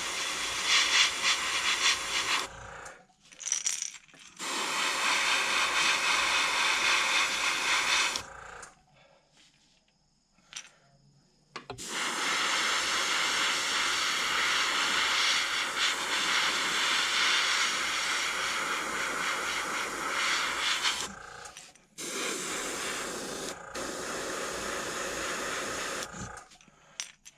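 Airbrush spraying paint in four bursts of a few seconds each, a hiss of compressed air that starts and stops as the trigger is pressed and released, with short pauses between.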